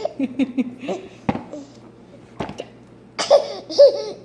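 A small child laughing in short, high-pitched bursts, with two sharp hiccups about a second apart in the middle.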